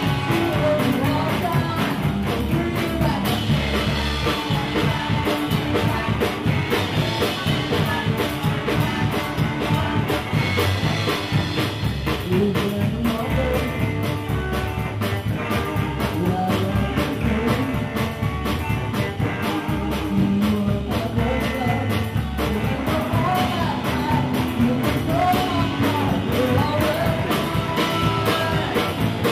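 Live rock and roll band playing: a woman singing into the microphone over electric guitar, upright bass and drum kit with a steady beat.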